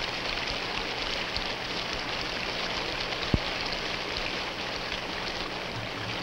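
Steady hiss of falling water, like rain or dripping in a wet forest, with a single sharp click about three seconds in.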